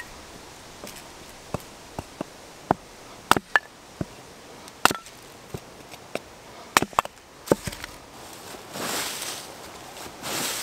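A small axe splitting kindling on a chopping stump: over a dozen sharp wooden knocks and cracks, irregularly spaced. Then, from about eight seconds in, footsteps crunching through dry leaf litter.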